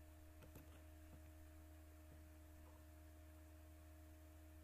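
Near silence: a steady low electrical hum, with a few faint mouse clicks in the first couple of seconds.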